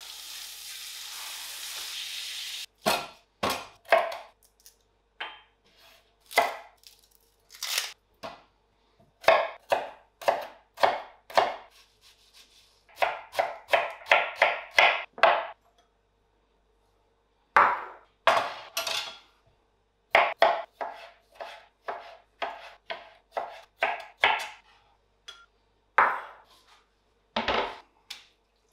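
Pork steaks sizzle in a hot pan for the first few seconds. Then a kitchen knife chops onion on a plastic cutting board: runs of sharp strikes, several a second, broken by short pauses.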